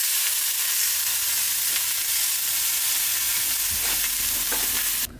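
Beef steak sizzling loudly in a hot, oiled non-stick frying pan. The sizzle holds steady, then cuts off suddenly near the end.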